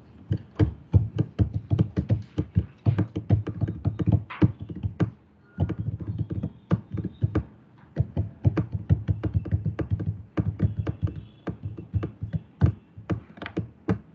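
Rapid, irregular clicking of keys being typed on a computer keyboard, several keystrokes a second, each with a dull thud, pausing briefly about five seconds in.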